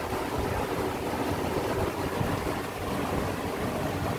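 Torrential rain pouring down steadily, a continuous even hiss.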